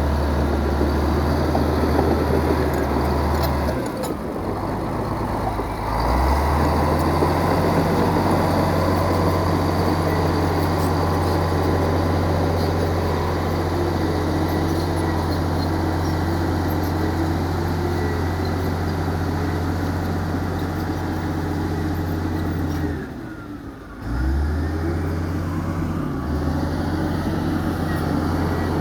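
Heavy diesel engine of earthmoving machinery running steadily under load, with a deep, even engine note and mechanical clatter above it. It breaks off briefly about four seconds in and again about twenty-three seconds in.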